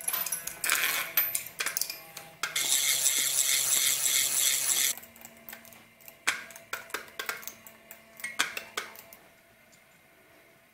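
Small metal spinning tops clattering and rattling on a hard surface: a quick run of sharp clicks, a dense high rattle lasting about two and a half seconds, then scattered clicks that thin out.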